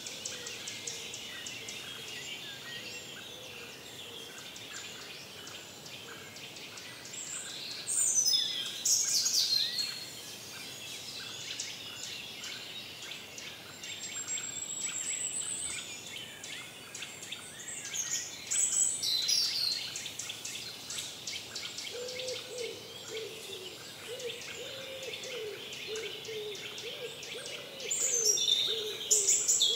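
Forest songbirds singing: one loud song phrase that falls in pitch comes about every ten seconds, with smaller high chirps in between and a lower wavering call in the second half, over a faint steady hiss.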